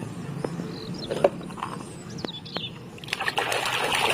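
Scattered sharp clicks and knocks of hard plastic toys being handled. About three seconds in, water starts splashing and trickling as the toys are washed.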